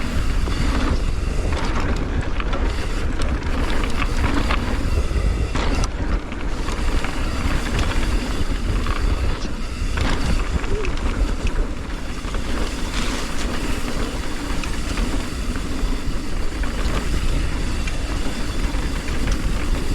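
Mountain bike riding on a dirt trail: wind buffeting the microphone in a steady low rumble, with tyre noise and scattered clicks and rattles from the bike over bumps.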